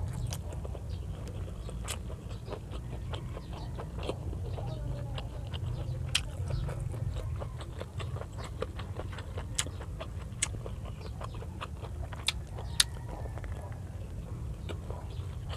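Close-miked eating sounds: chewing with wet lip smacks and frequent sharp mouth clicks as chicken neck adobo and rice are eaten by hand. A steady low hum sits underneath.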